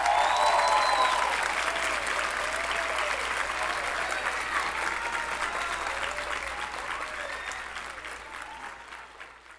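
Audience applauding with cheers and whoops, loudest at the start and fading out near the end.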